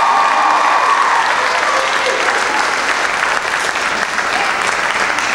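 Theatre audience clapping steadily, a dense crowd applause, with a voice calling out over it in a long held note for about the first second and a half.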